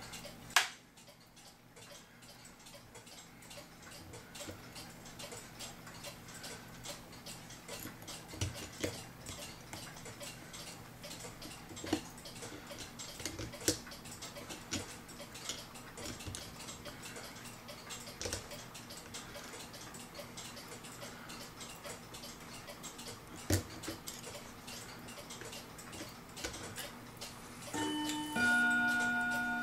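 Steady, faint ticking of clocks, with a few louder clicks of small metal clock parts and a screwdriver as a clock movement is taken apart. Near the end a bell-like ringing tone is struck twice and lingers, fading.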